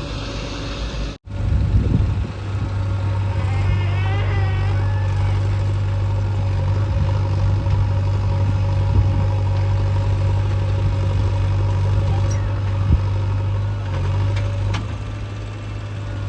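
Heavy diesel engine running steadily with a deep, even hum, cutting out for a split second about a second in.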